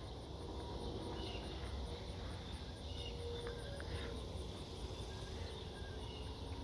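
Faint outdoor farmyard ambience: a high insect chirp pulsing several times a second over a low rumble, with a few faint short chirps.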